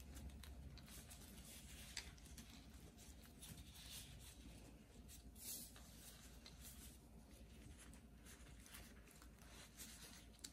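Faint rustling and rubbing of a banana leaf and thin plastic gloves as the leaf is folded, pressed and rolled around a cassava filling on a wooden board, with a slightly louder rustle about five and a half seconds in.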